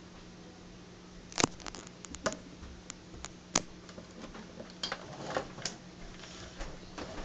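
Irregular light clicks and knocks from handling, a dozen or so, starting a little over a second in, over a steady low hum.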